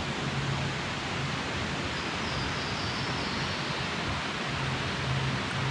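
Steady rushing of a mountain creek flowing past the campsite.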